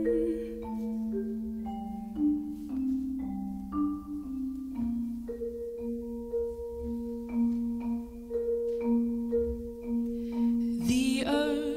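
Mallet percussion, vibraphone and marimba, playing a slow line of struck notes that ring on over held lower notes. A woman's singing voice comes back in near the end.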